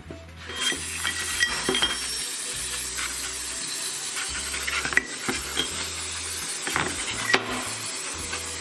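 Steady spraying hiss of a cleaning jet on connecting rods, starting about half a second in, with light metallic clinks as the parts are handled.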